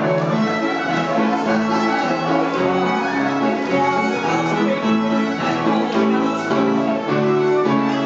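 Scottish country dance music from a small band: a fiddle carries the tune over a rhythmic chordal accompaniment with a steady dance beat.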